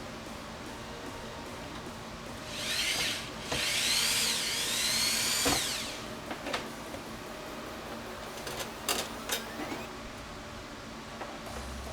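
A small handheld power tool's motor whirs in two short bursts, its whine rising and falling in pitch as it speeds up and slows. A few light clicks follow.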